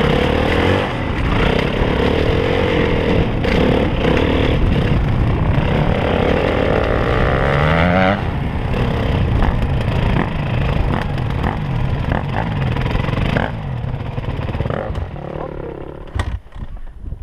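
Yamaha WR450F dirt bike's single-cylinder four-stroke engine running under way. Its pitch rises steadily as it revs up about six to eight seconds in, then drops off suddenly as the throttle is shut or a gear is changed. After about thirteen seconds it gets quieter.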